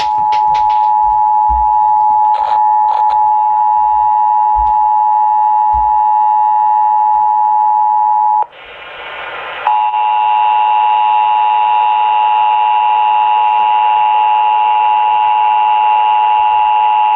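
Emergency Alert System attention signal: two steady tones (853 and 960 Hz) sounding together, a loud unbroken drone that cuts out for about a second just past the middle and then resumes. It is the warning that an emergency message is about to be read.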